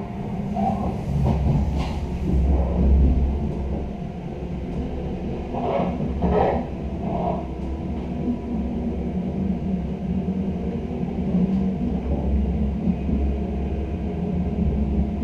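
Passenger coach of an electric Intercity train running along the track, heard from inside the door vestibule: a steady low rumble of wheels on rail, with a few short higher-pitched squeaks about six to seven seconds in.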